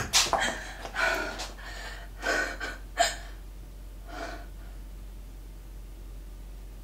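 A young woman crying: a handful of sharp sobbing gasps in the first three seconds and one softer breath about four seconds in, over a steady low hum.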